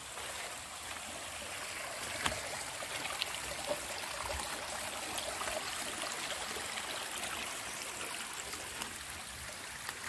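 Steady rush of a stream's running water, with a few faint clicks scattered through it.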